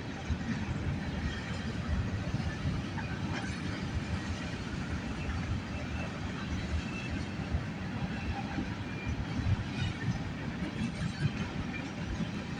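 Freight train of loaded autorack cars rolling past, its steel wheels rumbling and clattering steadily on the rails.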